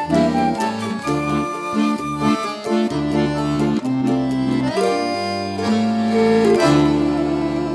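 Giulietti piano accordion playing a choro: short rhythmic chords over bass notes, broadening into longer held chords in the second half.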